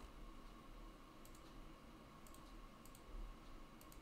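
Faint computer mouse clicks, about four in a row roughly a second apart, each a quick double tick, over a low steady hum.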